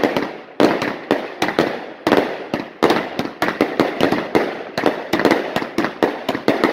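Consumer fireworks going off in a rapid, irregular string of sharp bangs, several a second, each trailing off.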